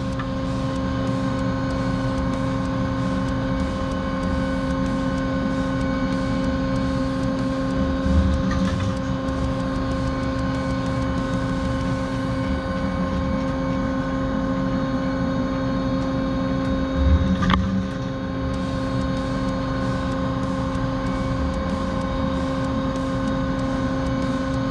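CNC machining centre running with a constant whine as an HPX solid carbide drill cuts through holes in a 4140 steel plate. A short, louder rumble comes about every nine seconds, around 8 and 17 seconds in, as each hole is drilled.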